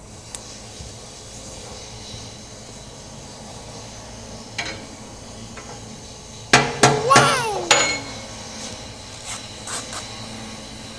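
A few sharp metallic knocks in quick succession, with ringing after them, about six and a half seconds in. There is a single light tap shortly before.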